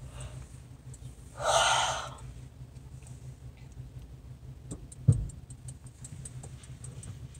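Steady low hum inside a parked car, with a short breath-like hiss close to the microphone about a second and a half in and a single dull thump about five seconds in, followed by a few faint clicks.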